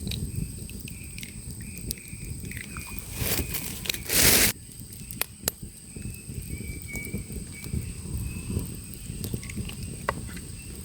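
Campfire crackling with scattered small snaps and pops, and one loud half-second burst of crunching noise about four seconds in.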